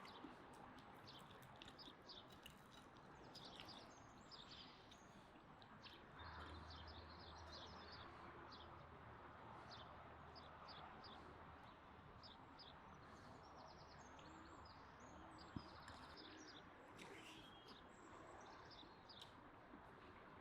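Faint birdsong: many short high chirps over a steady background hiss, with a low hum that comes in about six seconds in and stops about ten seconds later.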